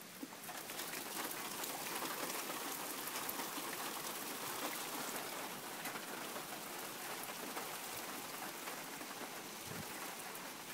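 Heavy rain falling steadily in a thunderstorm, with many separate drops ticking close by. It gets louder about half a second in.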